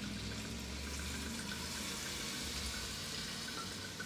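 Red wine pouring in a steady stream from a bottle into a Dutch oven full of browned beef and vegetables, the liquid splashing into the pot.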